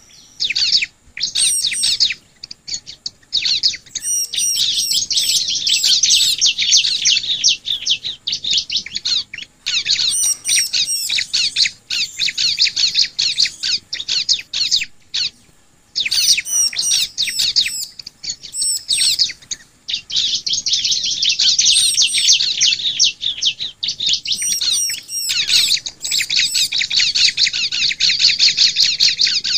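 Ciblek (bar-winged prinia) singing in long, rapid chattering phrases of high, fast-repeated notes, with short pauses between phrases.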